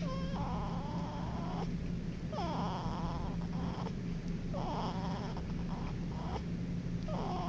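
Little snore of a young sleeper: a high, squeaky whistle on each breath, four times about two seconds apart, over a steady low hum.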